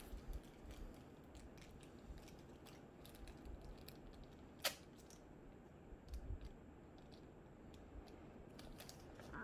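Faint clicks and rustles of a small plastic-wrapped toy packet being opened by hand, with one sharper click about halfway through.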